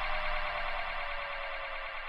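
Small model Stirling engine running, its flywheel and beam linkage making a fast, even mechanical whir with a tone that slowly falls in pitch as the sound fades.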